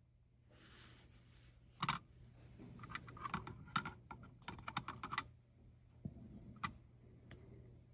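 Small tools and tiny pocket-watch parts clicking and tapping on a work surface while a watch movement is taken apart: one sharp click about two seconds in, a quick run of light clicks over the next few seconds, and two more near the end.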